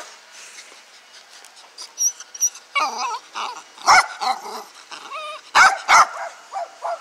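A small shaggy dog barking repeatedly, a run of barks starting about three seconds in, with the loudest barks near the end.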